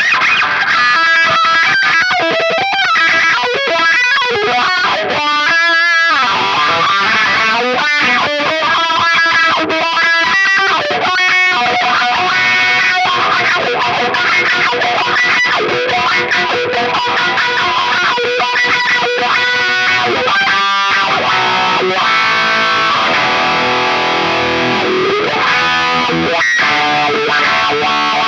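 Electric guitar played with distortion through a Dunlop GCB95 Cry Baby wah pedal: continuous single notes and chords, with the tone sweeping as the pedal is rocked.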